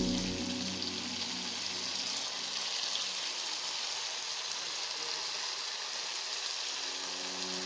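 Hot groundnut oil sizzling steadily around cabbage rolls deep-frying in a pan.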